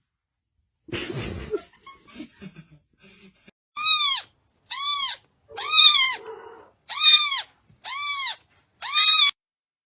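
Kitten meowing six times, about once a second: high calls that rise and fall in pitch. A short rustle comes about a second in.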